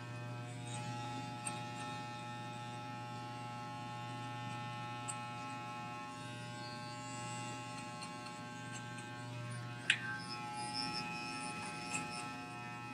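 Corded electric hair clippers buzzing steadily while blending a fade on the sides of the head, with a sharp click about ten seconds in.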